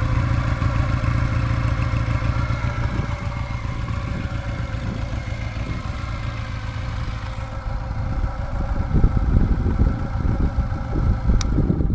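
1993 Honda CM125 Custom's air-cooled parallel-twin engine idling through its stock exhaust. After about seven seconds the steady engine note fades and a rougher, uneven low rumble takes over, with a sharp click near the end.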